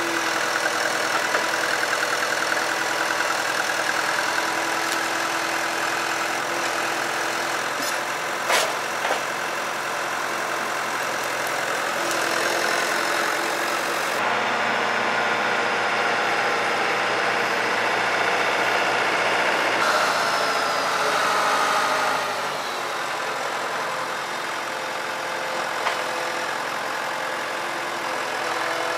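An engine running steadily, with a sharp click about eight and a half seconds in.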